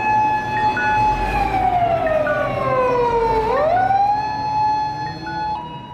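Japanese ladder fire engine's wailing siren: the pitch holds high, slides slowly down over about two seconds, then climbs quickly back up. Near the end it gives way to an ambulance's two-tone hi-lo siren, fading away.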